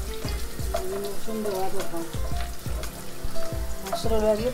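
Chopped garlic sizzling as it fries in hot oil in a pan, with stirring.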